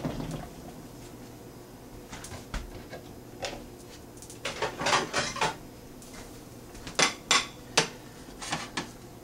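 Kitchenware being handled: scattered sharp clinks and knocks of dishes and cookware on a glass-top electric stove, as a ceramic plate is set down beside a frying pan. There is a cluster of clatter a little before halfway and three sharp knocks about seven seconds in.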